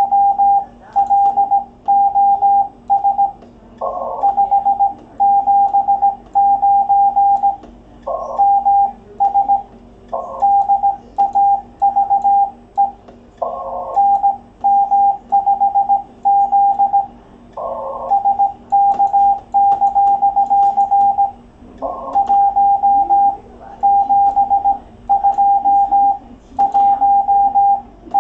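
Morse code (CW) from an amateur radio transceiver: a single steady beep keyed on and off in dots and dashes at a brisk pace, with a short rougher burst of noise every few seconds.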